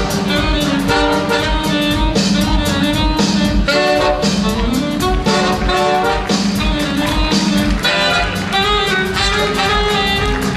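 Jazz-style music with brass instruments and a steady beat.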